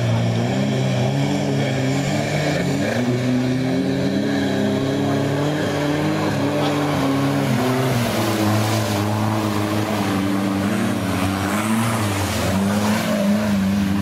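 Off-road 4x4 engines revving up and down under load as the vehicles drive through a river, with a rush of splashing water that grows louder about two-thirds of the way in.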